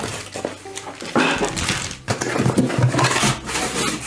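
Plastic packaging crinkling and rustling in stretches as a desk phone's handset cord is unwrapped and handled.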